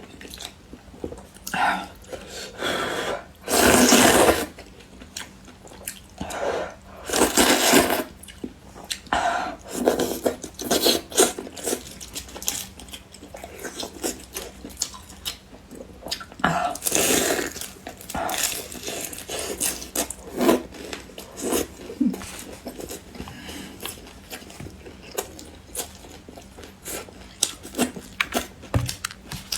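Close-miked eating sounds: chewing and biting food with many short wet clicks and smacks. A few louder, longer bursts come about 4 and 7 seconds in and again past the middle.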